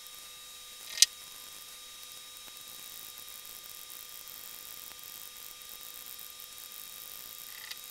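Steady hiss of an open microphone with faint, constant electrical hum tones, broken by one sharp click about a second in and a softer click near the end.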